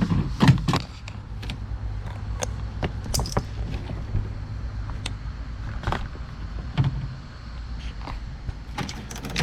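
Scattered clicks and knocks of the door latch and actuator assembly being handled and worked down inside a car door, over a steady low hum. The sharpest knocks come about half a second in and about six seconds in.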